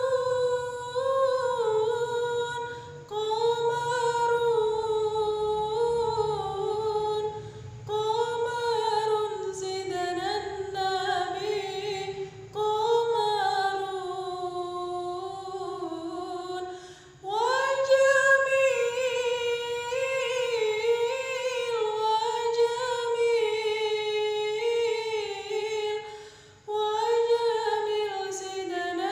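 A woman singing shalawat solo with no instruments, in long, wavering melodic phrases separated by short breaths.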